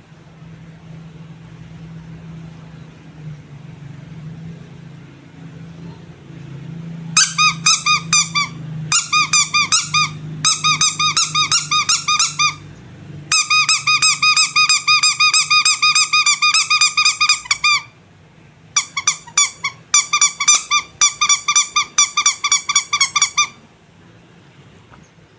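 Rubber squeaky toy squeezed over and over, giving quick high squeaks about five a second in several runs with short pauses between them. The squeaks start several seconds in, after a faint low hum.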